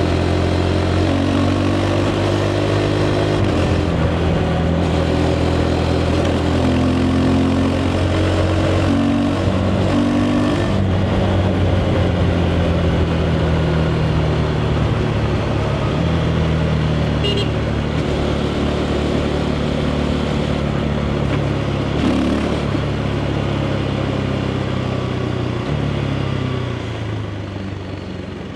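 KTM 390 Adventure's single-cylinder engine running through its stock exhaust at road speed, its pitch stepping with several gear changes, over wind and road noise. It eases off and gets quieter over the last few seconds.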